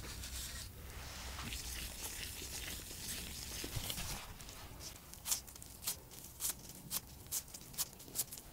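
Gloved hands rolling a ball of potato and glutinous rice flour dough between the palms with a soft rubbing rustle, then patting it flat with a run of sharp pats, about two a second, in the second half.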